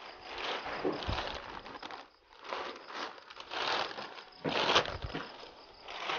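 Large clear plastic sack crinkling and rustling in irregular bursts as handfuls of wet cassava pulp are pressed down into it, with a couple of dull thumps.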